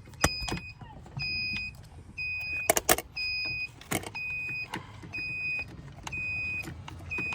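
An electronic warning chime beeping steadily, one short beep about every second, with a few sharp clicks and knocks, the loudest of them about three seconds in.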